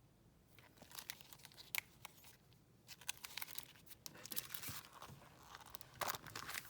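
Packaging wrapping being crinkled and torn open by hand, in irregular crackling bursts that start about a second in and grow denser toward the end.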